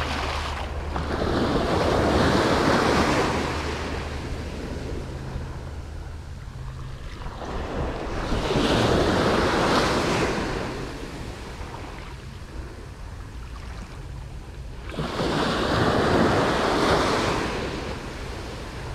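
Surf breaking and washing up the beach: three waves about seven seconds apart, each rising and falling away, over steady wind rumble on the microphone.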